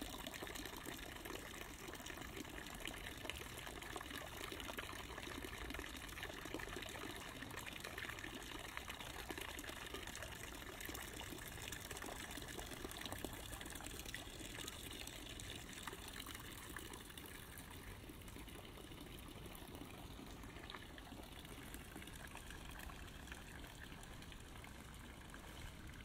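A thin stream of water pouring steadily from a spout into a water-filled, hollowed-out log trough, trickling and splashing.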